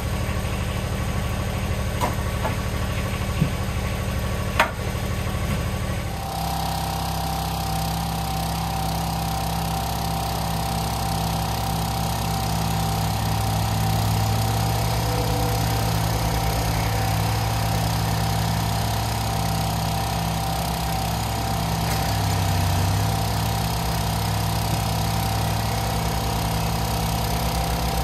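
Split firewood pieces knocking as they are tossed onto a pile, over an engine running outside. About six seconds in, engines run steadily with a constant high whine: a gas-engine log splitter and a Kubota BX23S compact tractor working beside it.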